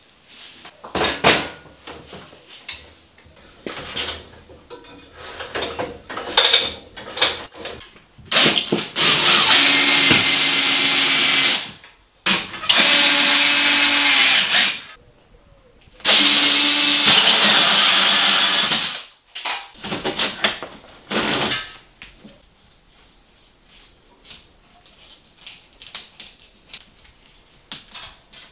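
An electric power tool, drill-like, running in three bursts of two to three seconds each. Before them come a series of knocks and clatter, and small knocks follow.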